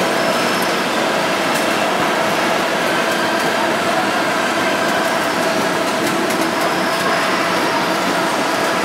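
Citrus sizing machine's exit conveyor belts and their drives running, carrying fruit: a steady mechanical noise with a few faint steady tones in it.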